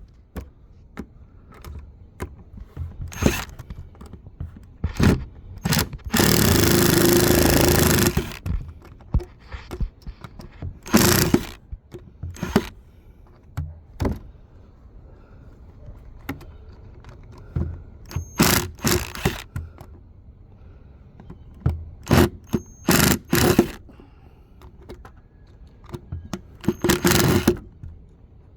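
Power drill-driver with a star bit backing out deck screws from wood, run in short bursts: one of about two seconds, then several brief ones. Knocks, clicks and scrapes of the tool and boards come between the bursts.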